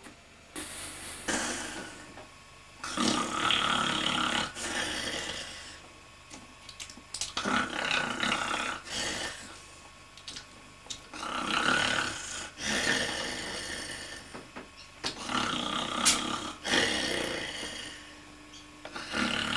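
A man snoring in deep sleep, one long snore every few seconds.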